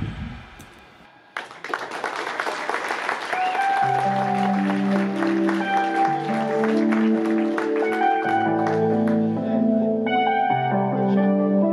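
The band's last note slides down in pitch and dies away, then the audience bursts into applause about a second in. Around four seconds in, sustained keyboard chords begin under the clapping and change every second or two.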